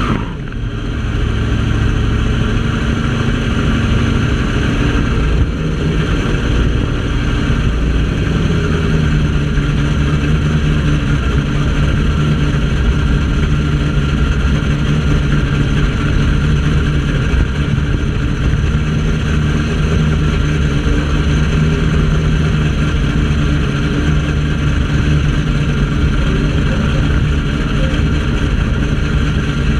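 A drag-racing vehicle's engine running steadily at low revs, an even low rumble with no revving, while the vehicle creeps slowly up the strip toward the starting lights.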